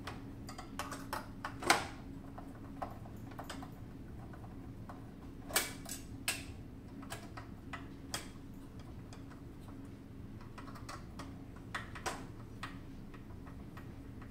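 Irregular light clicks and taps of tools and screws on a sheet-metal power-supply housing as its board is being removed, over a steady low hum.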